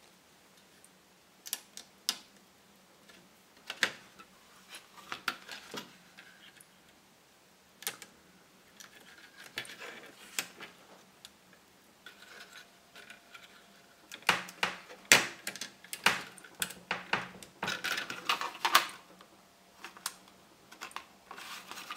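Fingers working a Ferranti ULA chip into its socket on a ZX Spectrum circuit board: scattered small clicks and scrapes of the chip and its pins. They come sparsely at first and get busier about two-thirds of the way through.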